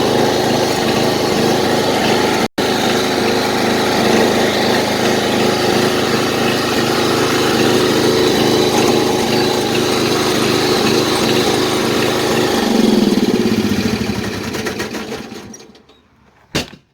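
Old riding lawnmower's small engine running steadily, then winding down and dying about three-quarters of the way in. Near the end comes a single loud backfire bang.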